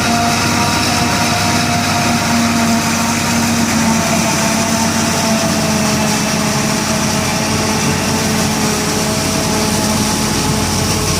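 Heavy farm machinery harvesting corn for silage, its engines running steadily with a constant hum and a faint whine that drifts slightly in pitch.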